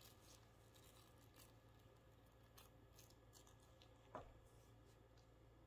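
Near silence: faint room tone with a few soft ticks and one small knock about four seconds in.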